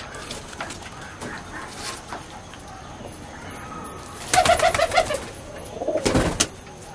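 Domestic pigeons cooing, the excited calls of courting males. A loud run of pulsing coos comes about four seconds in, and a short, sharp noisy burst follows about two seconds later.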